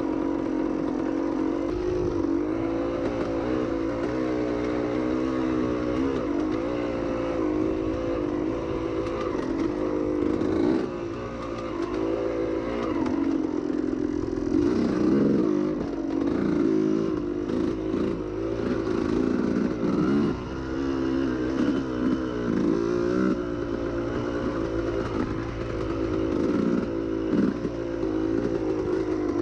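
Yamaha YZ250 two-stroke dirt bike engine running under load on a trail ride, its pitch rising and falling as the throttle is worked, with frequent brief drops where the throttle is rolled off, more often in the second half.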